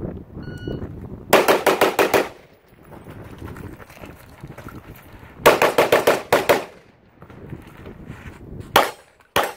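Shot timer start beep, then a quick string of rifle shots about a second in and a second rapid rifle string about five and a half seconds in, followed near the end by two single pistol shots at steel poppers.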